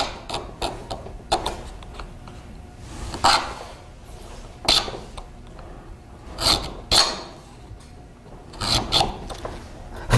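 The steel point of a church-key can opener scraping along a stress crack in a gel-coated fiberglass sample to open it up, in short, irregular scrapes about a second or two apart.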